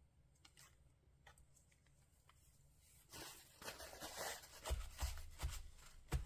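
Crumpled paper towel rubbing and rustling over a journal page, pressing down a freshly glued paper cutout, with soft thumps of the hands on the page. It starts about three seconds in, after a near-quiet stretch with a few faint ticks.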